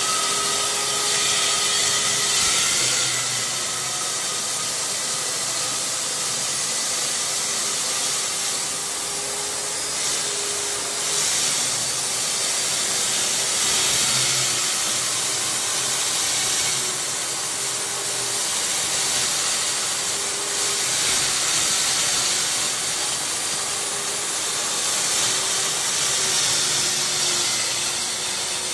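Stand-mounted electric diamond core drill with a water-fed core bit boring through a wall: a steady motor whine that wavers slightly under load, over a continuous grinding hiss.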